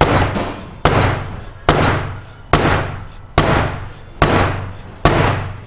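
Dead blow hammer striking a steel ball-joint-press adapter cup over a control arm shaft, a steady run of about seven blows a little under a second apart, each with a short ringing tail. Each blow drives urethane control arm bushings into a lower control arm.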